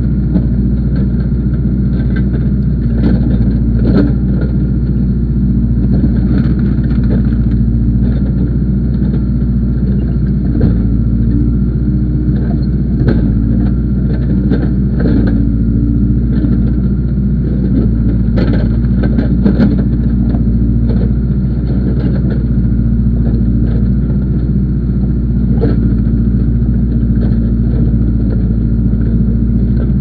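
Case backhoe loader's diesel engine running steadily as the backhoe digs under hydraulic load, with scattered short clanks and knocks from the boom and bucket.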